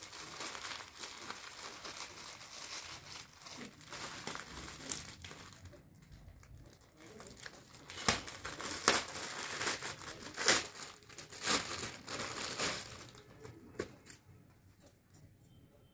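Gift wrapping being crumpled and torn open by hand: a run of crinkly rustling with sharp rips, dying down near the end.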